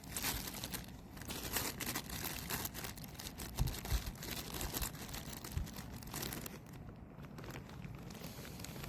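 Crinkling and rustling of something being handled, with a few soft low thumps in the middle; it dies down after about six and a half seconds.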